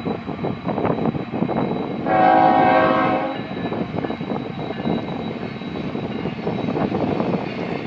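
BNSF freight train's diesel locomotives, including an ex-Santa Fe Warbonnet unit, running past with a steady rumble and clatter. A multi-note air horn sounds once, for about a second and a half, about two seconds in.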